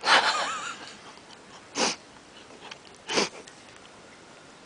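A person's loud breathy exhale at the start, then two short, sharp sniffs about a second and a half apart.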